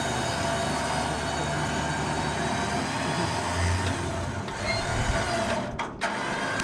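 Trailer winch running under load with a steady mechanical whine, pulling a car up onto a trailer; the sound breaks off briefly near the end.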